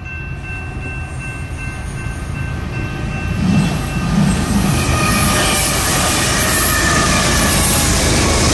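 A BNSF freight train approaching at about 45 mph and passing close by, its rumble and wheel noise growing and reaching full strength about four seconds in. Over the first few seconds two steady high tones sound above the rumble, fading out around five seconds in.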